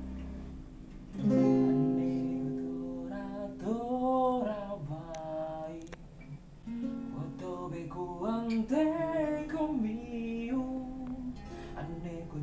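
Acoustic guitar strummed and picked, with a man's singing voice joining in from about three and a half seconds in.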